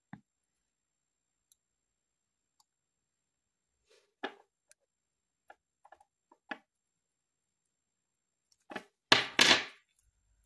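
A wooden toothpick being cut with small scissors. A few light sharp clicks are followed near the end by two louder cracks as the excess wood is cut or snapped off.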